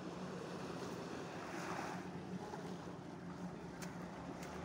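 Small waves lapping on a calm sandy shore, with the steady low hum of a distant boat engine under them.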